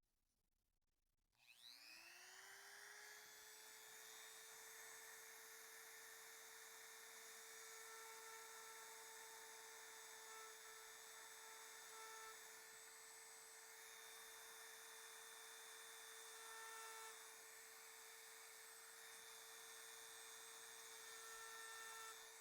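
Dremel rotary tool switched on about a second and a half in, spinning up with a quickly rising whine and then running steadily at speed, used to drill trapped air bubbles out of cured resin. Its tone shifts briefly several times as it works.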